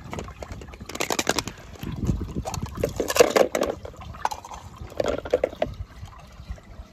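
Water splashing and trickling in several short bursts as toy cars are moved through and lifted out of a pool of water.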